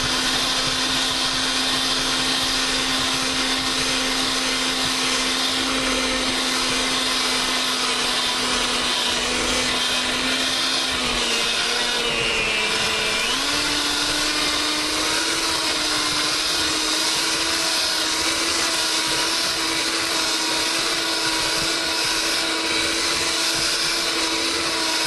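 Electric mixer beaters running steadily, whipping powdered sugar into softened cream cheese. The motor's pitch dips briefly about halfway through, then settles a little higher.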